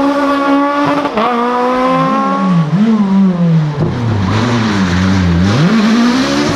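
Rally car engine held at high revs, briefly lifting about a second in, then revs dropping and rising unevenly through a slow section before the engine climbs hard back up to high revs near the end.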